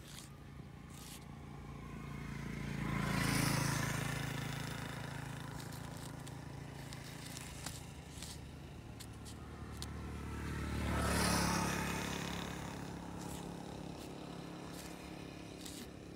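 Two motor vehicles pass by one after the other, the engine sound swelling and fading each time, loudest about three seconds in and again about eleven seconds in. Between them come faint short scratches of a felt-tip marker writing on a woven plastic sack.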